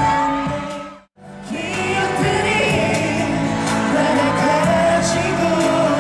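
A K-pop song performed live by male singers over a backing track, heard through the arena sound system. About a second in the audio briefly cuts to silence at a break in the recording, then the singing and music come back at full level.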